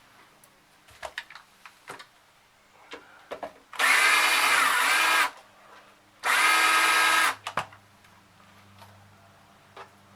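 Cordless drill-driver running in two bursts, about a second and a half and then about a second long, backing out screws while an amplifier is taken apart. A few light clicks and knocks come before the first burst.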